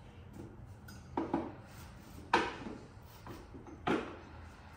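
A few sharp metal clunks and knocks as the swing arm and its axle are worked back into the pivot of a Sur-Ron electric dirt bike.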